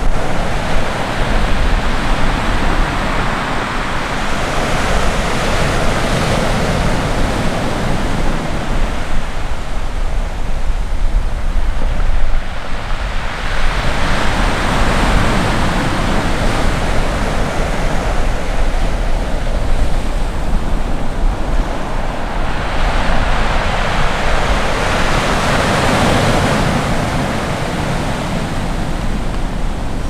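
Ocean surf: waves breaking and washing up the shore, swelling and easing every several seconds, over a steady low rumble.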